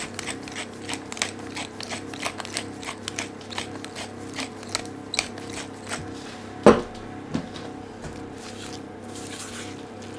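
Sea salt flakes crumbled between fingers onto quinoa and spinach in a metal pan, making a quick run of small, sharp crackles. About two-thirds of the way through comes a single louder knock. Near the end a silicone spatula tosses the quinoa and spinach with a soft rustle.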